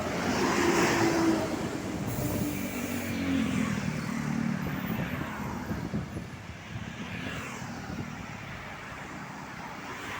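Road traffic passing close by: several vehicles drive past one after another, each swelling and fading, the loudest about a second in.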